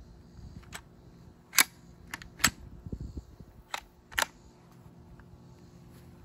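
Sharp metallic clicks and clacks from a Ruger American Gen II bolt-action rifle being loaded by hand: the magazine going in and the bolt being worked. About seven clicks in irregular succession, the two loudest about a second and a half and two and a half seconds in, with a quick double click near the end.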